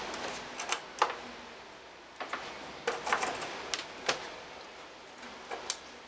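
Irregular sharp clicks and light knocks of a VGA cable plug being fitted into the port at the back of a computer monitor while the monitor is handled, about a dozen in all.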